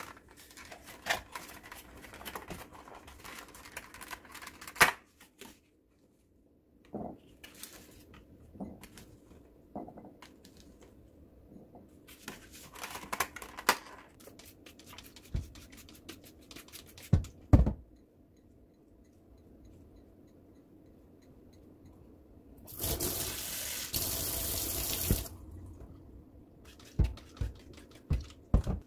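Short knocks and rustles of fruit and a plastic blueberry clamshell being handled on a counter, with blueberries tipped into a glass bowl. Near the end a kitchen tap runs into a stainless-steel sink for about two seconds, the loudest sound, followed by a few light knocks.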